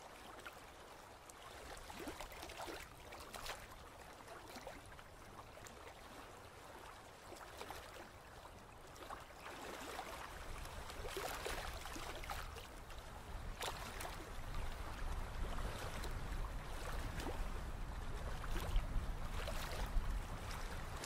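Faint sound of moving water, like a stream, with a low rumble that grows louder through the second half.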